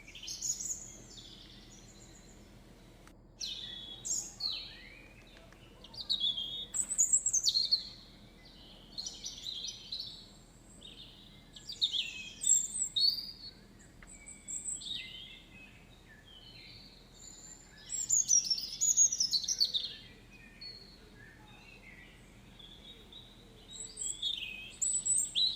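Songbirds singing outdoors: short bursts of high chirping and trilled phrases, repeated every few seconds with brief pauses between.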